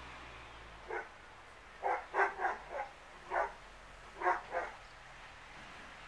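Dog barking: about eight short barks in irregular groups, starting about a second in.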